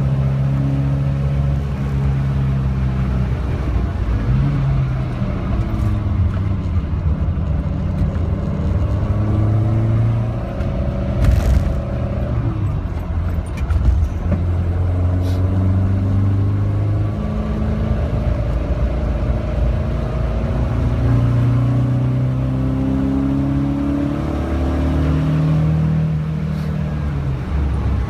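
Alfa Romeo Giulia's four-cylinder engine heard from inside the cabin under hard driving on track. The revs climb and drop through the gear changes, fall away around halfway as the car brakes for a slow corner, then climb again.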